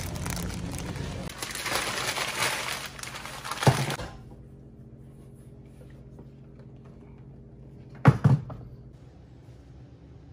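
Plastic noodle packaging crinkling against store background noise, ending in a knock; then a quiet room with a steady low hum, broken by two sharp thumps in quick succession about eight seconds in.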